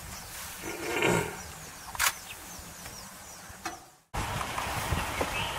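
Outdoor field ambience with a run of faint high chirps, a brief louder voice-like call about a second in and a sharp click at two seconds. The sound fades out just before four seconds and comes back as a steady windy rumble.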